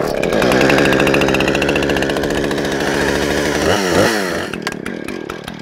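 Husqvarna 460 Rancher two-stroke chainsaw firing on the pull and running cold, about to be warmed up, with a quick rev up and back down a little under four seconds in, then settling lower.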